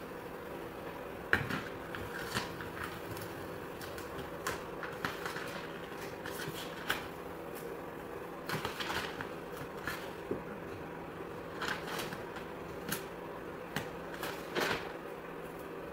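Vinyl decal backing paper and transfer sheet rustling and crackling in short, irregular bits as they are peeled and pressed against the door by hand, over a steady background hum.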